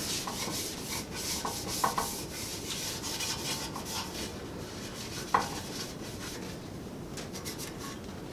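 A mini bike frame being scuffed by hand with an abrasive, in quick irregular rubbing strokes, to key the surface for paint. A couple of light knocks come about two seconds in and again at about five and a half seconds.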